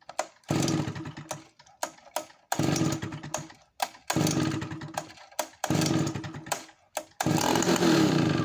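Solo 60135 92cc two-stroke chainsaw being pull-started cold on full choke: five hard yanks of the recoil starter, about one every second and a half, each turning the big engine over without it catching, with short clicks between pulls. These are priming pulls after the saw has sat unused for over a month.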